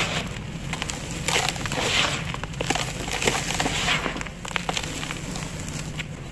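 Dry cement lumps crushed and crumbled by hand in a tub: gritty crunching in repeated swells with scattered sharp crackles as the pieces break and the powder falls.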